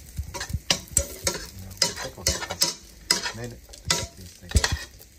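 Metal spoon scraping and clicking against a frying pan in quick, irregular strokes while sliced Chinese sausage sizzles in its own rendered fat.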